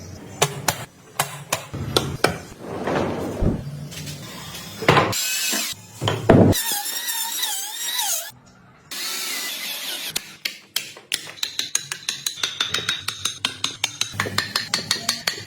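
Woodworking tools on wood, in several short spliced stretches: clicking and scraping, a short whining stretch of a small power tool, then a run of quick regular strokes, about five a second, like a saw or rasp working the wood.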